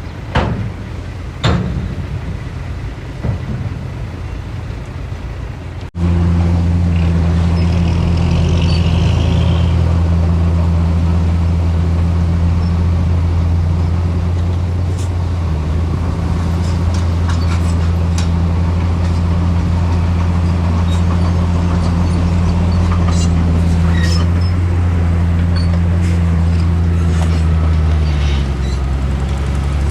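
Heavy diesel engine of earthmoving equipment running loud and steady with a deep drone, cutting in abruptly about six seconds in after a few sharp knocks; its pitch dips slightly near the end, with scattered clanks over it.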